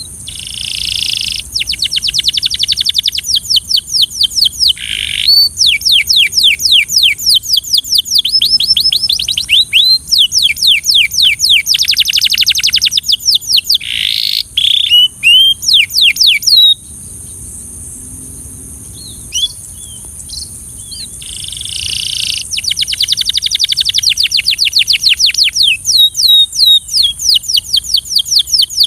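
Belgian canary singing: long phrases of fast trills, rapidly repeated notes and sweeping whistles, with a lull of a few seconds near the middle broken by a few single notes before the trilling resumes.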